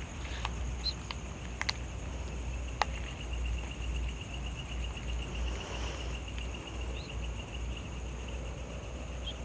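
Night insects chirring. One of them trills in a rapid, evenly pulsed run for several seconds in the middle, over a low steady rumble, with a few faint clicks near the start.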